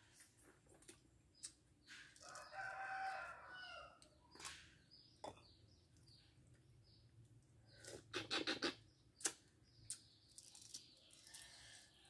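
A rooster crows once, about two seconds in, while small birds chirp repeatedly. Around eight to nine seconds in comes a quick cluster of sharp clicks: a spoon tapping and cracking the shells of boiled quail eggs.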